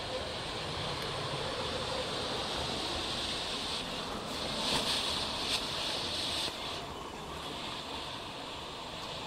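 Purple smoke grenade burning with a steady rushing hiss. The hiss grows louder for a couple of seconds midway, then settles back.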